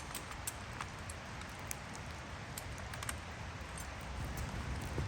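Light, irregular pattering of drops, scattered ticks over a steady low rumble.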